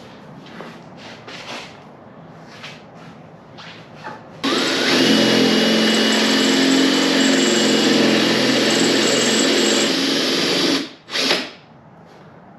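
A few light knocks and clicks, then about four seconds in a power drill spins up with a rising whine and runs steadily for about six seconds, drilling out a rivet, before stopping, with one short burst after it.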